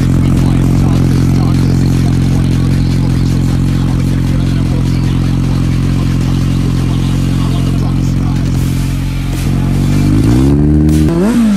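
Kawasaki Z900's inline-four engine idling steadily through an SC Project CR-T slip-on exhaust, then blipped near the end, the pitch rising and falling back.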